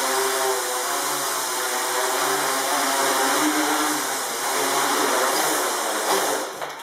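Tricopter's three electric motors and propellers whirring, the pitch wavering up and down with throttle as it flies low. About six seconds in it comes down hard on the floor and the motors spool down, the sound dropping away sharply.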